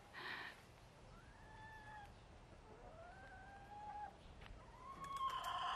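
Hens giving soft, drawn-out whining calls that glide up and then down in pitch, several in a row, the last one near the end louder.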